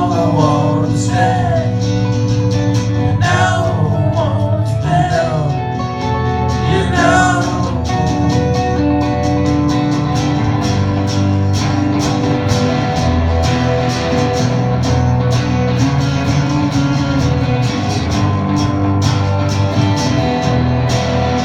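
Live acoustic band playing: a voice sings a few lines over strummed guitar, then about eight seconds in the singing stops and the guitar keeps strumming a steady rhythm.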